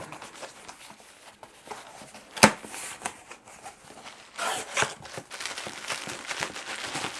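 Packaging being opened by hand: one sharp snap or click about two and a half seconds in, then rustling and crinkling of wrapping.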